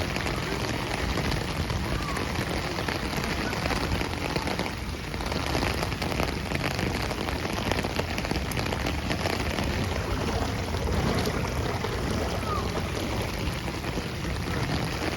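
Heavy rain falling steadily, with a brief lull about five seconds in.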